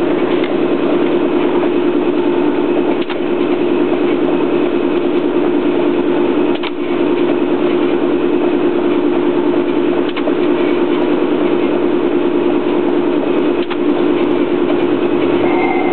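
Mark One roll-to-roll perforator running, its perf blades working against a brush roller: a loud, steady machine hum with a brief tick about every three and a half seconds.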